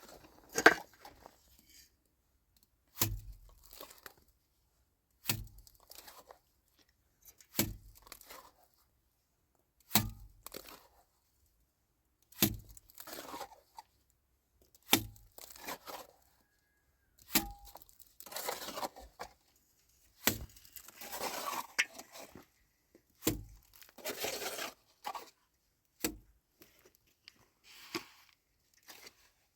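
Repeated heavy blows at a steady pace, about one every two and a half seconds, each a sharp thud followed by a short scraping crunch.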